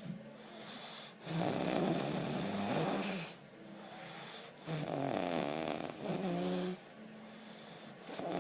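A person snoring: two long snores of about two seconds each, with quieter breathing between them, and a third snore beginning near the end.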